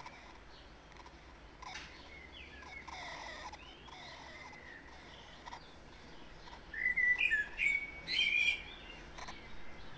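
Birds chirping in short, irregular calls over a low background hiss, with a louder run of quick chirps about seven seconds in.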